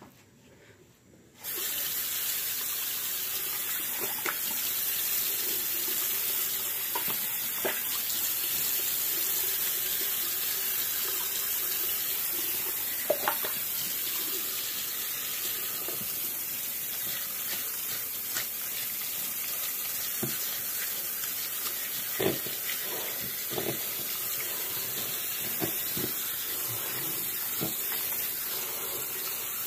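Water running steadily from a bathroom tap or shower, turned on abruptly about a second and a half in, with a few light knocks over it.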